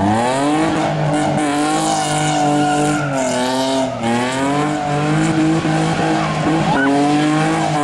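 A car's engine revving hard while it drifts, its pitch swinging up and down several times as the throttle is worked, with the tyres squealing and sliding.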